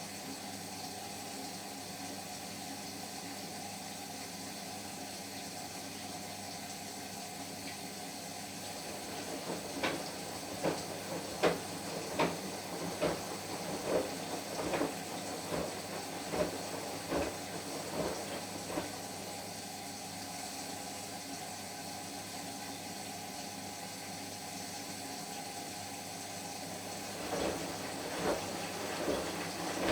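Washing machine in its wash cycle: a steady running hum with the drum turning and water and laundry sloshing in regular surges, about one and a half a second, for several seconds. The drum then pauses and starts turning again near the end.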